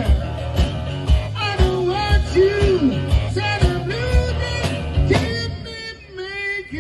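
Blues-rock band music: a steady drum beat about twice a second under electric guitar lines that bend in pitch. The drums drop out about six seconds in.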